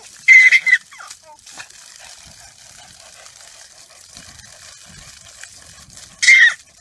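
A baby shrieking with laughter: two short, high squeals, one just after the start and one near the end.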